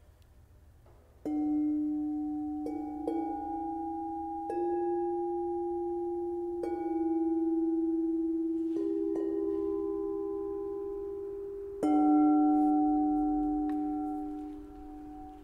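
Tuned bells struck one at a time, about eight strikes at different pitches, each ringing on and slowly fading so the tones overlap; the last and loudest strike comes about three-quarters of the way through.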